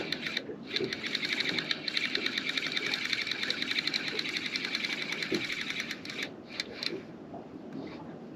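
Fishing reels' ratchet clickers buzzing in a fast, even run of clicks as line is pulled off, the sign of fish taking the baits. The buzzing stops about six seconds in, with a few short bursts after.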